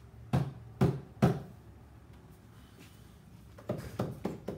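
Knocks on wooden kitchen cabinets: three sharp knocks in the first second and a half, then a quick run of about four more near the end.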